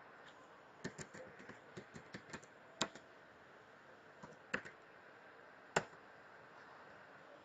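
Typing on a computer keyboard: a quick run of keystrokes, then a few scattered single key clicks, two of them louder than the rest.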